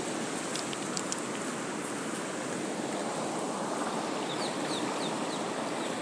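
Steady rushing noise of river water and wind, with a bird chirping several times in short high falling notes about four seconds in.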